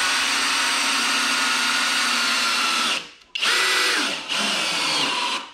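Kobalt XTR cordless drill driving wood screws into a wooden bed leg. A steady motor whine for about three seconds stops, then the drill spins up again and runs on in short bursts so as not to over-torque the screws, cutting off abruptly near the end.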